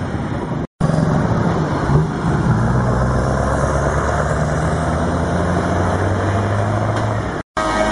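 Heavy truck diesel engine running as an articulated truck drives slowly past close by, with tyre noise; the engine note rises slightly about two seconds in, then holds steady. The sound breaks off abruptly for a moment twice, about a second in and near the end.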